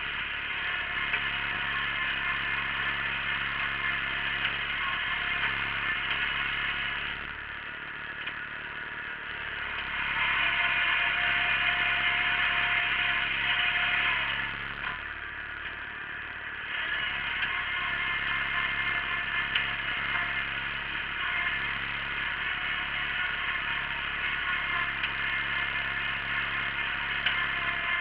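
Wheel Horse garden tractor running steadily under load as it pulls a single-bottom moldboard plough through soil, with clatter from the plough and hitch. The sound dips briefly twice and is louder for a few seconds in the middle.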